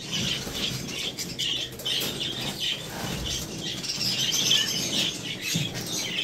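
Many budgerigars chattering and chirping steadily in their breeding cages, with brief flutters of wings.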